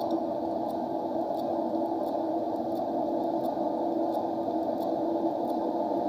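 Steady whirring rush with a constant hum from the blower and fire of a wheeled bitumen (tar) boiler, worked by hand at its side, with faint regular clicks about every 0.7 s.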